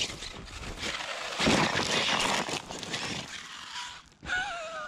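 Traxxas Sledge 1/8-scale electric monster truck on 8S power running across a grass field, its tires spinning through the grass with a rough noise that swells about a second and a half in and dies down after about three seconds. A man's voice starts near the end.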